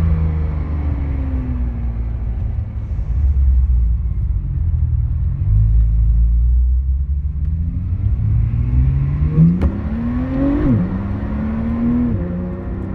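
Porsche 911 Turbo S (991.2) twin-turbo flat-six on its stock exhaust, driving. The engine note falls and holds low, then climbs under acceleration, drops sharply at a gear change about ten seconds in, and eases off near the end.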